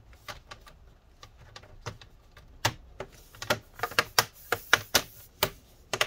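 Bottom cover of an HP 17t-cn000 laptop pressed back onto the chassis, its clips snapping into place in a run of sharp clicks. The clicks are sparse at first and come faster and louder from about two and a half seconds in.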